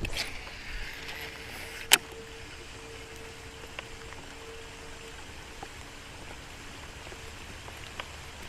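Steady rain falling on the water and boat, with a sharp click about two seconds in and a faint hum through the middle.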